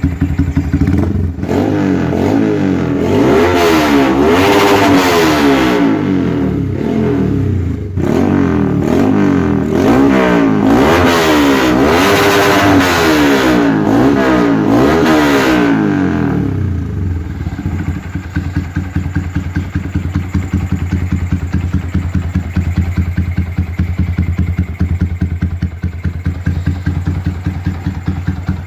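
Yamaha Vixion single-cylinder motorcycle engine, built with a 62 mm oversize piston, ported head, BRT T2 camshaft and BRT Juken 5 exhaust, revved up and down repeatedly in two spells of throttle blips with a brief drop between them. After about sixteen seconds it settles back to a steady idle.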